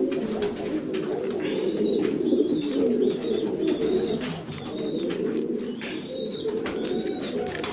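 Many pigeons cooing together in a loft, a dense, unbroken chorus of low, warbling coos. A few short, thin, higher calls rise over it now and then.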